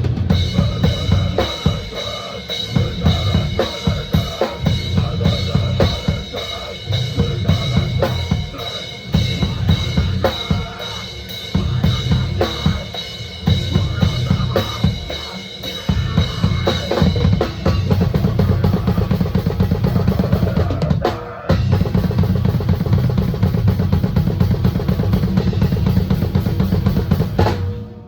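Live band music with the drum kit loudest: fast, dense kick-drum and snare strokes over a thick low backing. There is a brief break about 21 seconds in, and the playing stops right at the end.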